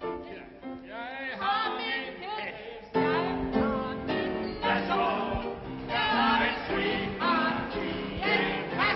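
Several voices singing a song over instrumental accompaniment; the singing gets louder about three seconds in.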